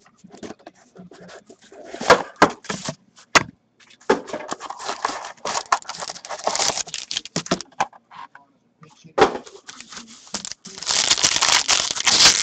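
A cardboard box of hockey cards being handled and opened, with taps and scrapes. Near the end, the foil wrapper of the pack inside crinkles and tears as it is ripped open.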